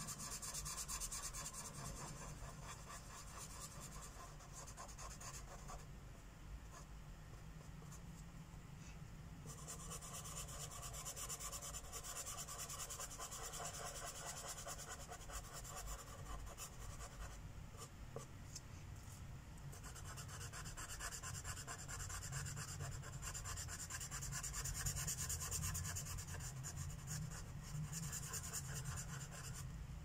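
Sharpie Cosmic Color fine-point permanent marker tip rubbing on the paper of a colouring book in quick back-and-forth strokes, colouring in a shape.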